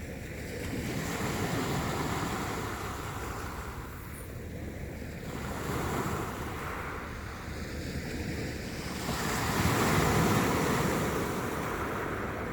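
Sea waves washing in on the shore, the surf swelling and falling back three times, the last swell the loudest.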